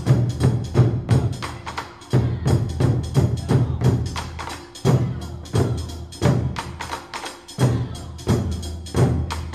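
Background music with a fast, busy percussion beat: rapid wooden clicks over a steady low bass, with a stronger accent about every second and a half.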